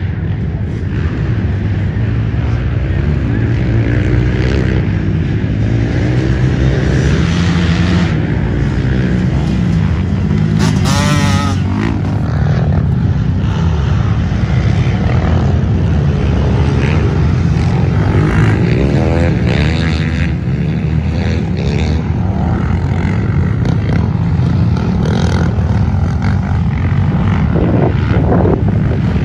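Dirt bike engines running and revving up and down through the gears, loud and continuous, with a bike coming along the trail near the end.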